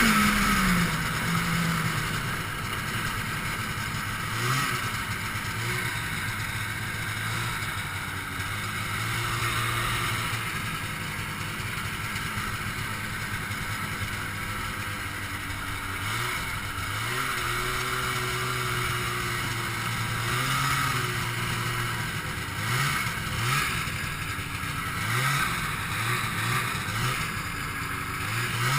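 Ski-Doo Blizzard 5500 snowmobile's 503cc two-stroke twin engine running under way. Its pitch holds steady for long stretches and rises and falls with the throttle several times, most often near the end.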